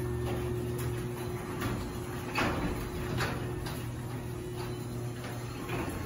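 Chamberlain B970 belt-drive DC garage door opener running as it lowers a sectional garage door: a steady motor hum, with irregular clicks and clatters as the door runs down, the loudest about two and a half seconds in.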